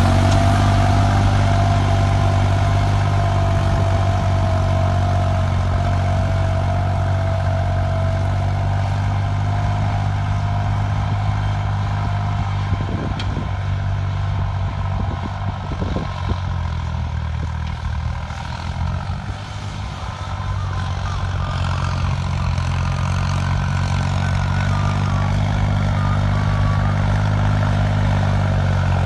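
New Holland tractor's diesel engine running steadily under load while pulling a 15-tine cultivator through the soil, with a high whine easing slowly down over the first ten seconds. The engine grows quieter as the tractor draws away and louder again as it comes back.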